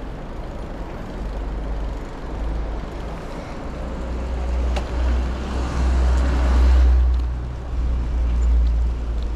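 Wind buffeting the microphone as a bicycle rides fast, with road noise. The deep rumble swells to its loudest about six to seven seconds in.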